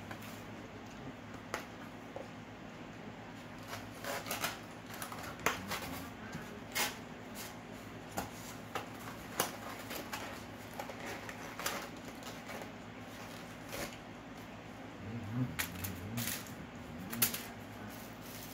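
Styrofoam clamshell takeout container being handled and closed on a table: scattered sharp clicks, squeaks and crackles of the foam and a plastic fork, over a faint steady hum.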